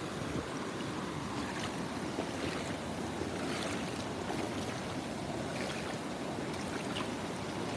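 Steady rushing noise of river water, with a few faint scattered clicks.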